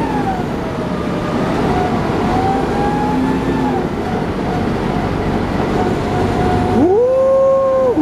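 Interior running noise of a 1994 TMC RTS transit bus under way, its Detroit Diesel Series 50 four-cylinder diesel and Allison VR-731 automatic drivetrain giving a steady drone with a whine that slides down and back up in pitch. About seven seconds in, a louder whine sweeps up sharply, holds for about a second, then drops away.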